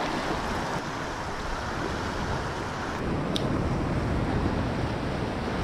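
Shallow surf washing in over sand, a steady rush of moving water.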